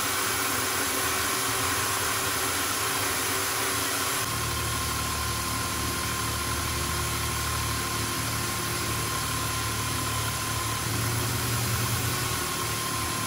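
Electric drill mounted upright in a drill stand, running steadily while it spins a steel knob and then a felt polishing wheel that buffs the knob. About four seconds in, the hum shifts and grows deeper, then holds steady again.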